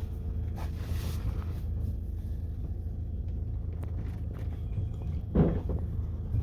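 Steady low rumble of a car, with a short louder sound about five and a half seconds in.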